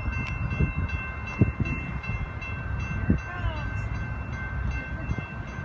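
Grade-crossing warning bells ringing steadily with rapid repeated dings, over a low rumble with a few thumps.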